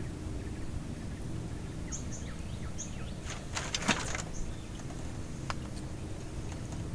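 Open-air ambience with a steady low rumble, a few short high bird chirps about two seconds in, and a quick cluster of sharp clicks near the middle.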